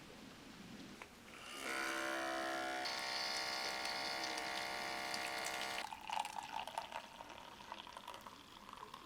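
A small electric motor buzzing steadily for about four seconds, its tone shifting partway through before it stops abruptly. Soft clicks and rustling follow.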